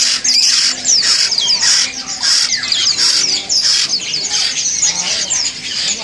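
Many caged birds squawking and chirping together: a steady stream of short, high, falling calls overlapping one another.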